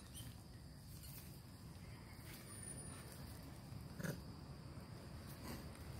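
Faint, short grunts from long-tailed macaques, the clearest about four seconds in, over a low steady outdoor rumble.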